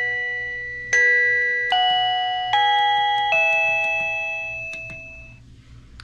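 Reolink plug-in doorbell chime playing its bell-like chime tune: four clear notes struck in quick succession, then the last one rings out and fades away.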